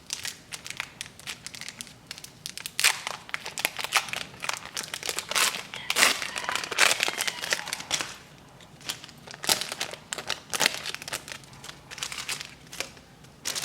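Foil wrapper of a Pokémon trading card booster pack being crinkled and torn open. Irregular crackling, busiest through the middle, then thinning to a few scattered crinkles near the end.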